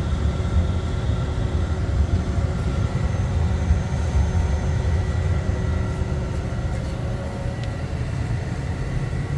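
John Wood gas water heater running: its power-vent blower motor and lit gas burner give a steady low rumble with a faint steady hum over it. The heater is firing normally after its pressure switch was fixed.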